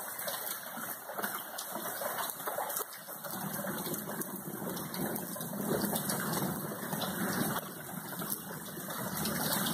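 Small hail pellets pattering on a concrete walkway as an even hiss. From about three seconds in, a low rumble of thunder rolls underneath for several seconds.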